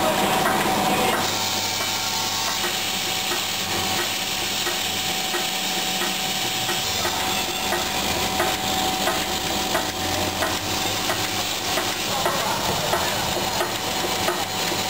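Vibratory bowl feeders running, with plastic clips and steel nails rattling and buzzing as they are shaken round the bowls and along the feed tracks. Under this run a steady hum and regular light clicks about twice a second.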